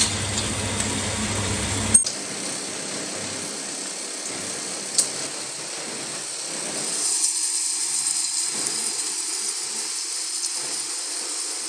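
Metal lathe machining sounds. A low machine hum cuts off sharply with a click about two seconds in, leaving a steady high hiss with a sharp click a few seconds later.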